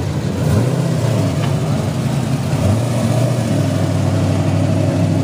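Nissan 240SX drift car's engine running steadily at low revs, close by as the car rolls slowly past.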